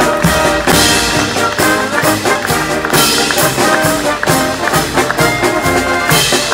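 Live brass band, a sousaphone among the horns, playing an upbeat tune with a steady beat.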